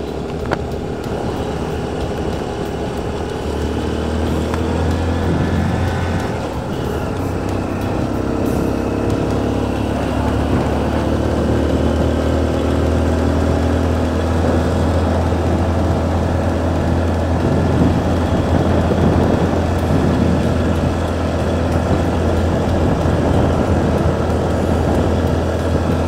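Motorcycle engine running while riding, its pitch rising and falling with the throttle, under a steady rumble of wind on the microphone.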